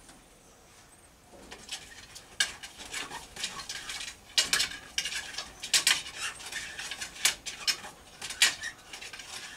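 Irregular sharp clicks and light clinks of hard objects, starting about a second and a half in, several of them loud.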